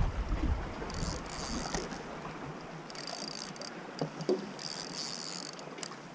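Spinning reel ratcheting in three short bursts while a hooked mullet is played on a bent rod, with a couple of soft knocks about four seconds in.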